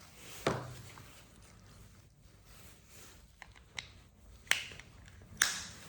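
A few short, sharp plastic clicks and taps from handling a Ford Mondeo smart key fob with its casing just snapped back together. One comes about half a second in and two stronger ones near the end, with faint handling noise between.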